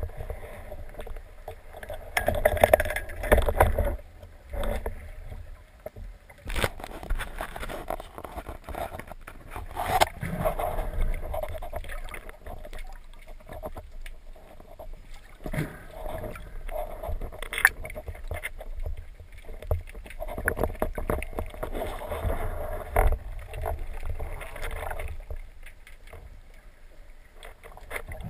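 Muffled underwater water movement and low rumble, heard through a waterproof camera housing on a speargun, swelling and fading as the diver moves, with a few sharp knocks.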